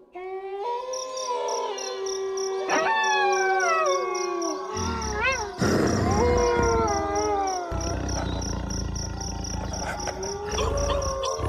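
A pack of wolves howling in overlapping chorus: long calls that slide down in pitch, with a short wavering howl about five seconds in. High, rapid insect chirping pulses steadily underneath, and a low rumble comes in about halfway through.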